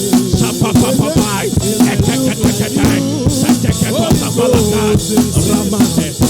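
Live worship music with a drum kit beat and sustained keyboard tones, with voices rising and falling over it.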